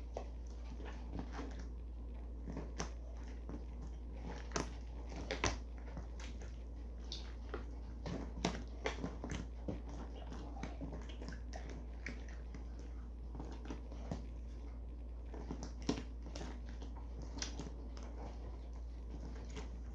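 Slime being squeezed and folded by hand for the slime 'click' trick, giving irregular small clicks and pops.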